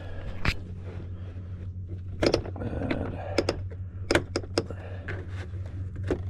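Plastic door trim panel being pulled off by hand: a string of sharp clicks and knocks as its pop clips let go and the panel shifts. A steady low hum runs underneath.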